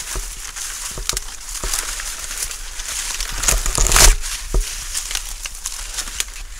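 Dry, dead corn leaves and stalks rustling and crackling as a person pushes between the rows, with many sharp crinkling snaps and the loudest crunch about four seconds in.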